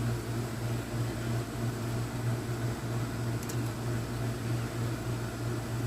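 Steady hum of a room air conditioner running, with a faint tick about three and a half seconds in.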